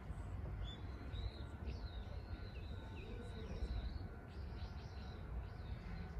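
Small birds chirping, a run of short whistled notes that bend up and down, repeated through the whole stretch, over a steady low rumble of outdoor background noise.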